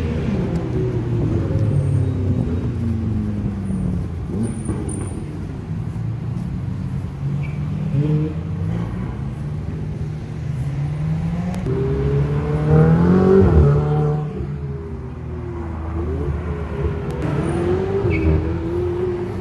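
Ferrari sports car engines passing one after another, their notes rising and falling as they rev and go by. The loudest is a hard acceleration with the engine note climbing steeply about two-thirds of the way through.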